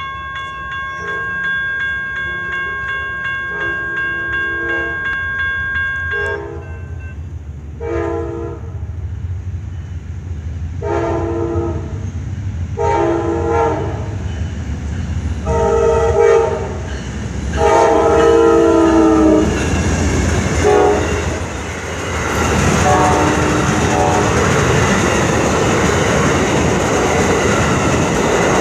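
Amtrak GE Genesis diesel locomotive sounding its air horn in a run of long and short blasts as it approaches a grade crossing, over a crossing bell ringing at the start. From about three-quarters of the way in, the passenger train rolls past close by with a steady rumble and wheel clatter.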